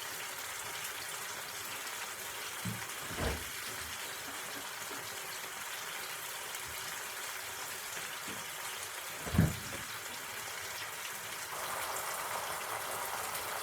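Chopped tomatoes sizzling and simmering in a hot frying pan, a steady hiss that grows a little louder near the end. Two dull knocks, about three seconds in and again about nine seconds in, from the spoon poking at the tomatoes in the pan.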